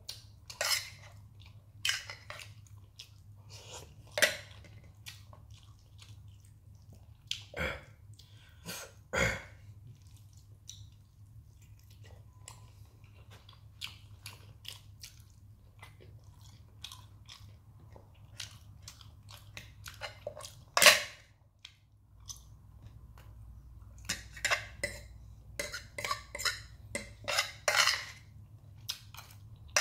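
Close-up chewing and mouth sounds of someone eating noodles and rice, with a fork clinking and scraping on a plate; one sharper, louder click about 21 seconds in and a busier run of chewing and clinks near the end. A faint low hum runs underneath.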